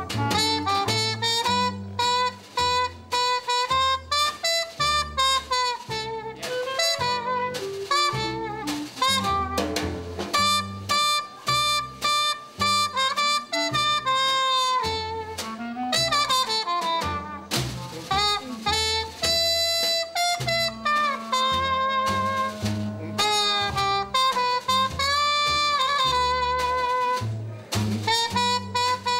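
Acoustic swing jazz trio: a trumpet plays an instrumental melody over a plucked upright double bass and a snare drum keeping time.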